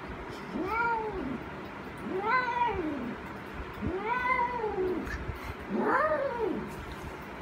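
Female Persian cat in heat calling: four drawn-out yowls, each rising and then falling in pitch, about a second and a half apart.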